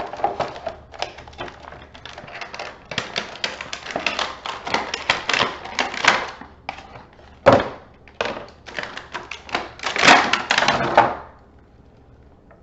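Action figure packaging being handled and opened: plastic tray and cardboard crinkling and clicking in quick, irregular crackles, with a sharp knock about seven and a half seconds in and a loud stretch of crinkling near the end before it falls quiet.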